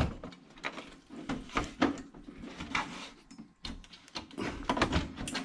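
Sheet-metal side panel of an old HP Vectra PC case being handled and pushed into place: a run of short clicks, knocks and rattles.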